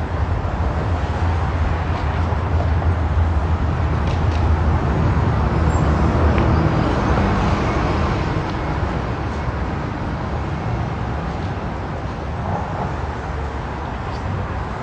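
Steady low rumble of a motor vehicle with road noise, a little louder in the middle of the stretch and then easing off.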